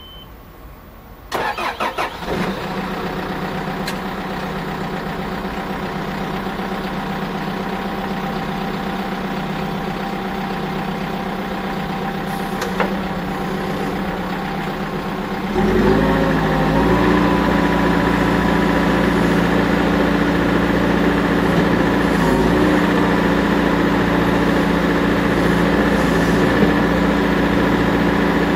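Caterpillar 420E IT backhoe loader's diesel engine starting a little over a second in, catching after a brief crank and settling into a steady idle. About halfway through it speeds up to a higher, louder steady run.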